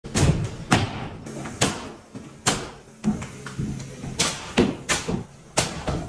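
Pneumatic coil framing nailer driving nails into wood framing overhead: about nine sharp shots at irregular spacing, each with a brief ring.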